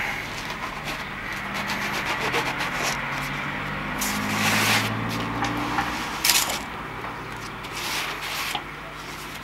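Sharpened divider point scraping round a circle in 3 mm Foamex PVC foam board, pressed in hard to score a deep cutting line. Repeated scratchy strokes, with louder passes in the middle and near the end.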